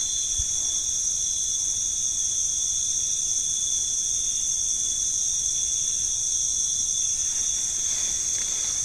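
A steady, unbroken chorus of night insects, shrilling at two high pitches.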